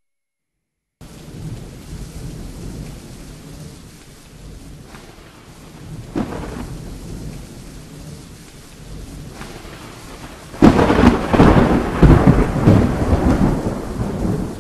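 Thunderstorm: steady rain with low rumbling thunder starting about a second in, a short sharp crack about six seconds in, and a loud, long peal of rolling thunder from about ten and a half seconds in.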